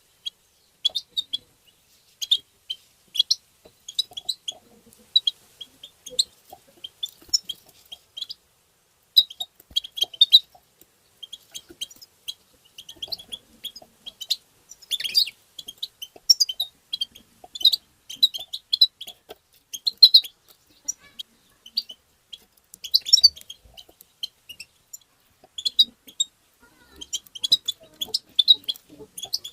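European goldfinch twittering: fast runs of high chirps and trills in bursts separated by brief pauses. This is the excited 'batbata' call-twitter of the goldfinch.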